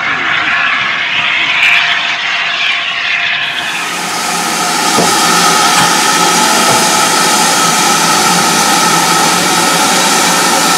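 A steam locomotive standing close by, letting off a loud, steady hiss of steam, which starts abruptly about three and a half seconds in. Before it, a duller rushing noise.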